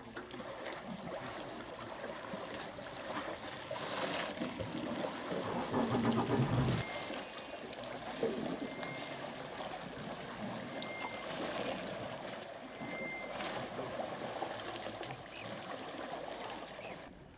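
Water rushing and splashing against a boat's hull as it moves along a river, a steady wash with no clear engine note.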